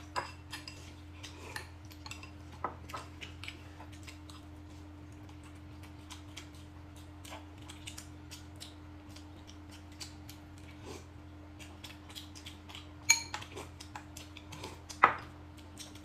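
Eating utensils clinking and tapping against bowls and dishes during a meal: many light clicks scattered throughout, with two louder clinks a couple of seconds apart near the end.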